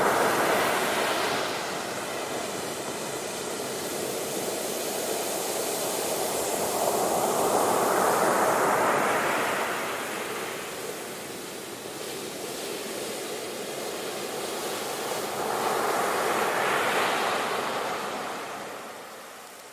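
Ocean waves washing onto a shore, swelling and ebbing in slow surges about every eight seconds.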